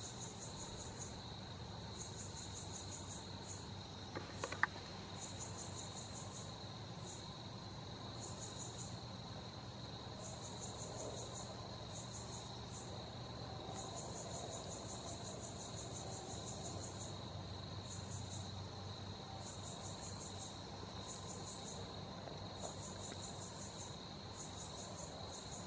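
Night insect chorus, likely crickets: a steady high-pitched trill under repeated rapid chirping trains that start and stop every second or two. A single sharp click sounds about four and a half seconds in.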